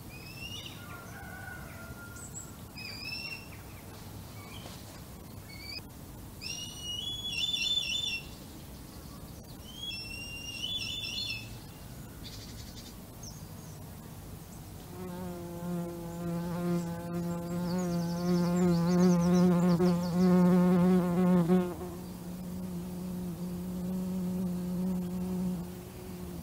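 Red kite chicks calling in high, bending whistles, several short notes in the first half. About halfway through, an insect starts buzzing close to the microphone: a steady low buzz that wavers as it moves, loudest a few seconds later and easing off near the end.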